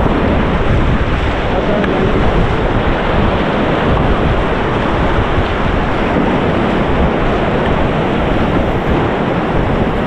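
River water rushing and churning around an inflatable raft, a steady loud noise with wind buffeting the microphone.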